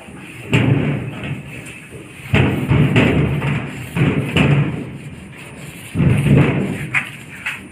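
A paint roller worked up and down the sheet-steel door of a metal almirah, the thin panel rumbling under each stroke. About four strokes, a second or so apart.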